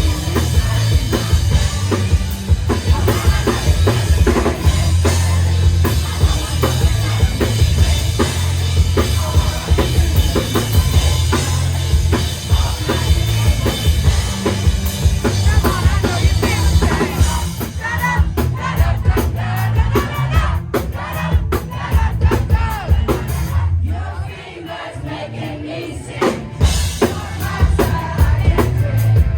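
Loud live rock band playing, with drum kit and heavy bass to the fore. About two-thirds of the way in the high cymbal wash drops away and the drums hit more sparsely, with a brief lull a few seconds before the end before the full band comes back in.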